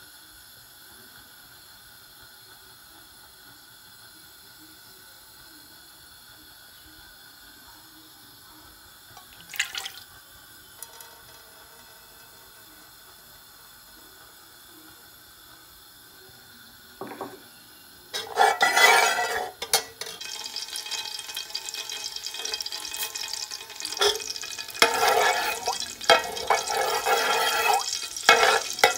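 Cumin seeds sizzling and crackling in hot oil in a non-stick pot, stirred with a steel ladle. The first half is a faint steady hum with one knock; the sizzle starts suddenly about two-thirds of the way in and goes on in uneven surges.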